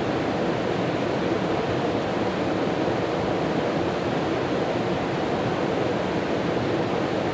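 Steady rushing of a river's flowing water, an even unbroken noise.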